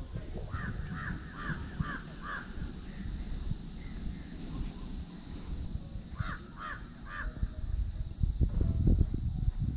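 A crow cawing: a quick run of five caws, then three more about six seconds in. Under them run a steady high buzz and a low rumble that grows louder near the end.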